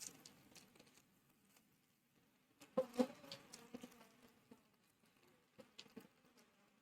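Faint handling noises of a boxed keyboard being unpacked: scattered light clicks and rustles, with a short cluster of louder knocks about three seconds in.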